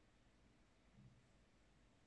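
Near silence: room tone, with one faint, short low thump about a second in.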